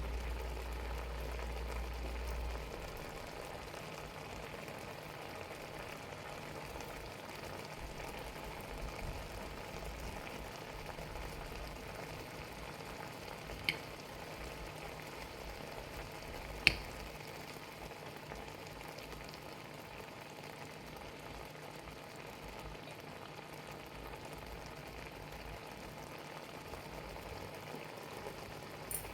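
Shrimp cooking on the stove, a steady bubbling sizzle. A low hum stops early, and there are two sharp clicks in the middle.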